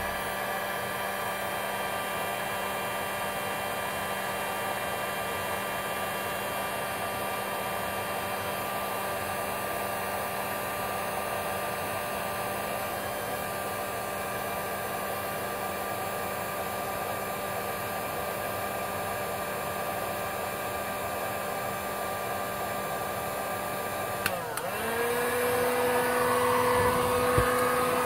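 A handheld electric heat gun blowing steadily, its motor and fan giving a constant hum, heating the adhesive on transmission wiring connectors to loosen them. Near the end it briefly drops, then comes back higher in pitch and louder.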